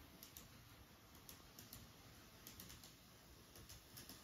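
Faint, irregular clicking of a model railcar's wheels running over the track joints of a layout.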